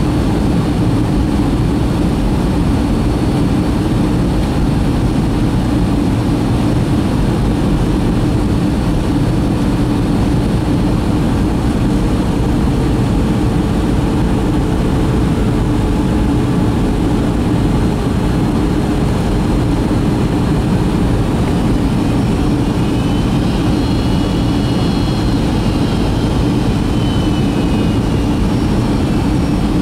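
Boeing 757-200 cabin noise on approach: the jet engine and the rush of air past the fuselage make a steady, even drone, heard through the cabin. In the last third a faint higher whine rises and then fades.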